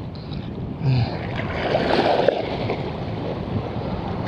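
Wind on the microphone and water washing at the shore, with a short grunt-like voice sound about a second in and a louder swell of rushing noise around two seconds in.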